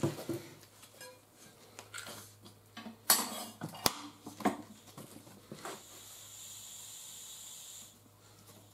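Harbor Freight manual tire changer's steel bead breaker being worked with its lever bar to push a tire off the wheel's bead: scattered metal clanks and knocks, the loudest about three seconds in. Later a steady hiss runs for about two seconds.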